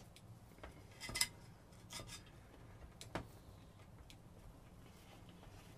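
Faint clicks and scrapes of hands working the anode cap's spring clips loose from the back of a CRT tube. A handful of small clicks, the loudest about a second in, with further ones near two and three seconds.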